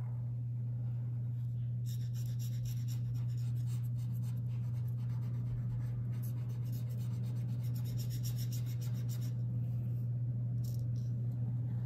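POSCA paint marker's felt tip rubbing over paper in many quick strokes as it fills in a band of colour, from about two seconds in until shortly before the end. A steady low hum runs underneath.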